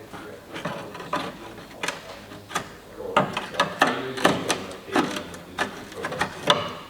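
Irregular metallic clicks and clanks of hand tools working on the car's front suspension as the old lower arm is worked loose, several knocks a second with short pauses between.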